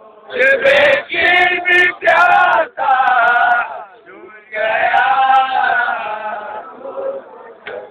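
A man reciting a nauha, a Muharram lament, in loud chanted phrases with short breaks between them and one long held line about halfway through. A few sharp smacks sound under the first phrases.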